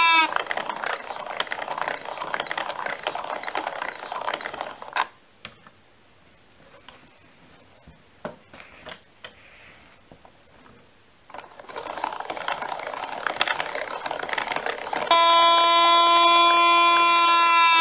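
The mechanism of a carved sloth automaton running, a rattling and clicking of moving parts that goes quieter for about six seconds midway, leaving only scattered clicks. A loud, steady buzzing tone starts about fifteen seconds in and runs to the end.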